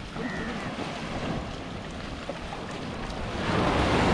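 Small waves breaking and washing up onto a sandy beach, with wind buffeting the microphone; a wave rushes in louder near the end.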